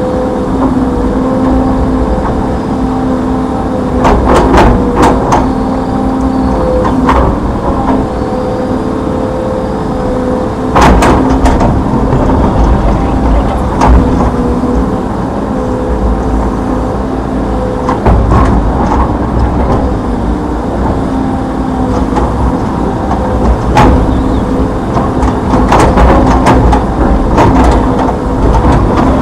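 Hitachi Zaxis 210F excavator working, its four-cylinder turbocharged diesel engine running with a steady whine. Several sharp clanks come at irregular moments through it.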